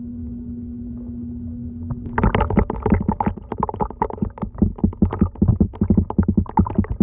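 A steady low hum, then about two seconds in a rapid, irregular gurgling and popping of bubbling liquid that carries on to the end.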